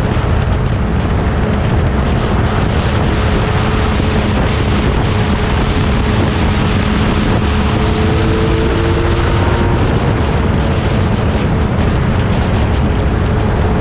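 1960s prototype racing car engines running on the circuit, a steady low rumble with faint engine notes sliding slightly in pitch, and heavy wind buffeting on the microphone.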